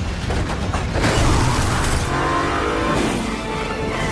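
A car engine revving hard during a chase, with music underneath.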